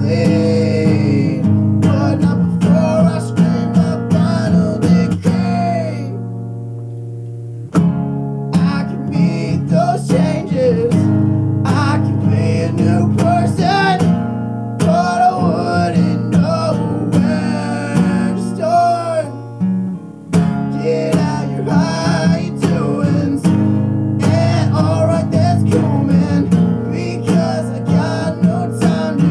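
Strummed acoustic guitar in a lo-fi acoustic folk-punk song, with a wavering melody line over the chords. The strumming lets a chord ring out and fade about six seconds in, then comes back in sharply, and it dips briefly again near twenty seconds.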